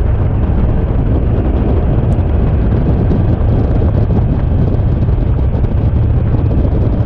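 Boat running underway, its rumble mixed with heavy wind buffeting the microphone.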